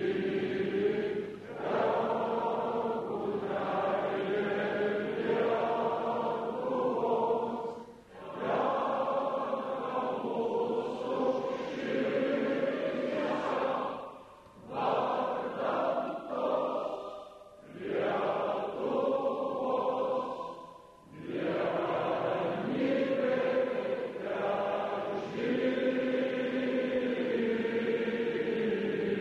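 A large crowd singing together in unison, in long slow phrases with short pauses between the lines.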